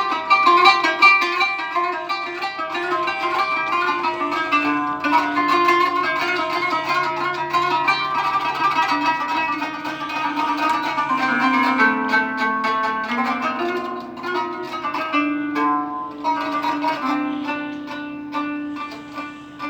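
A plucked string instrument playing an improvised melody, with quick runs of plucked notes over lower held notes.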